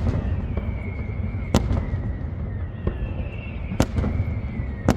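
Fireworks display: sharp bangs of shells bursting about once a second, over a steady low rumble, with a thin high whistle in between.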